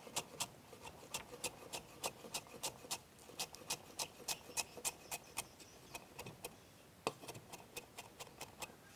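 Chef's knife mincing lemongrass on a wooden cutting board: faint, quick, even taps, about three or four a second, with a short pause a little past the middle.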